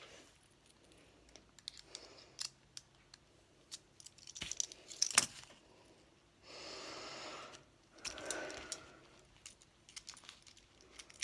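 Small metal keys jangling, with scattered sharp metallic clicks from a pair of cheap handcuffs being handled. A short hiss or rustle comes a little past the middle.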